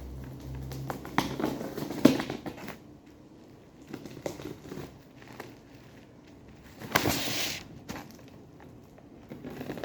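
A cardboard shipping box and its packaging being handled: a cluster of knocks and rustles in the first three seconds, then a short rasp of packaging about seven seconds in.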